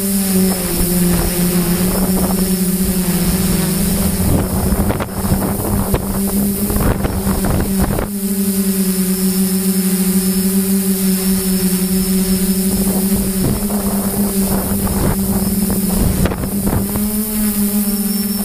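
Electric motors and propellers of an FPV model aircraft, heard from its onboard camera: a steady hum whose pitch dips about half a second in and picks back up a few seconds later. Gusts of wind buffet the microphone in between.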